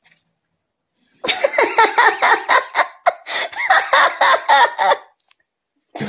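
A young woman laughing hard: a run of quick, pulsed laughs that starts about a second in and lasts about four seconds, with a short break in the middle.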